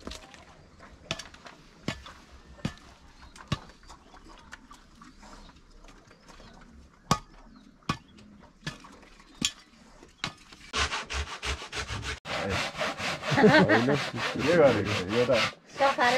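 Sharp knocks roughly once a second as a hand tool strikes stony soil. About eleven seconds in, a handsaw starts cutting a wooden board with rapid, even back-and-forth strokes, much louder than the knocks.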